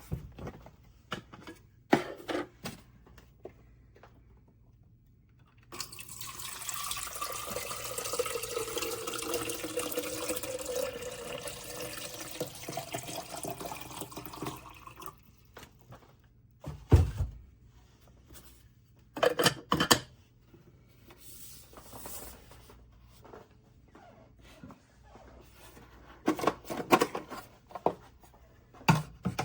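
Water running from a tap into a container for about nine seconds, with a steady hiss and a shifting pitch as it fills. Scattered clicks and knocks of handling come before and after it, the loudest knock about seventeen seconds in.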